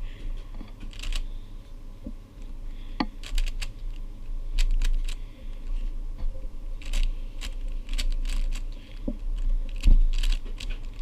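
YJ Guanlong speed cube being turned quickly by hand, its plastic layers clicking in rapid, irregular flurries while the first two layers are solved.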